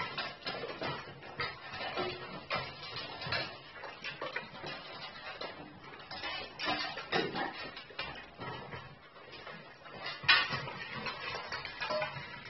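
Several Cane Corsos eating kibble from stainless steel bowls on a wooden floor. The metal bowls give irregular clinks, knocks and scrapes as the dogs nose and push them, with one louder clank about ten seconds in.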